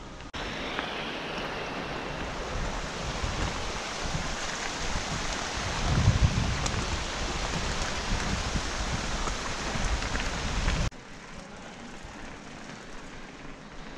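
Riding noise of a mountain bike on a gravel track: a steady rushing hiss of tyres on gravel and air over the camera, with a louder low rumble about six seconds in. It cuts off suddenly near eleven seconds to a quieter hiss as the bike rolls on paving.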